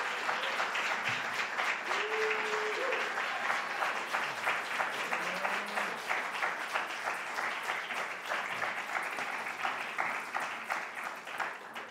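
A small audience applauding steadily, with many hands clapping and the clapping fading off near the end.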